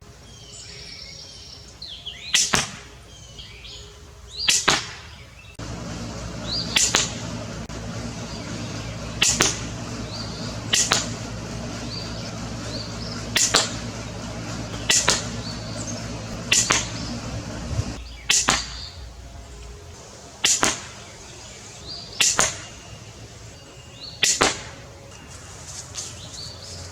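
Pistol crossbow shooting plastic bolts over and over: a sharp snap of the string about every two seconds, around a dozen shots. A steady low hum runs under the shots from about six seconds in until about eighteen seconds.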